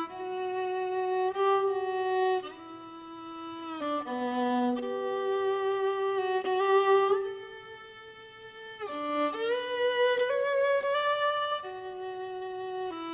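Background music: a solo violin playing a slow melody, one sustained note after another.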